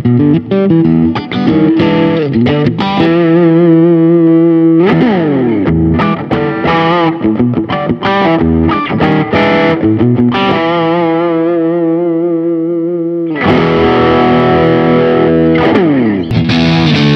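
Grassroots G-Snapper electric guitar played with overdrive: lead lines with string bends and vibrato, long held notes and a ringing chord, first on the middle and bridge pickups together, then on the bridge pickup alone. The sound stops briefly about 13 seconds in, then the playing resumes.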